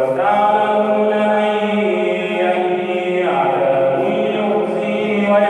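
A man's voice reciting the Quran in Arabic in a slow, melodic style, holding long notes that step from one pitch to another.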